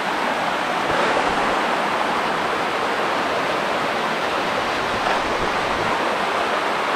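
Small waterfall and stream cascading over rocks: a steady rush of running water.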